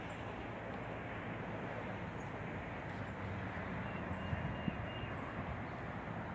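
Steady outdoor background noise, a low rumble with a hiss over it, and a few faint low thumps.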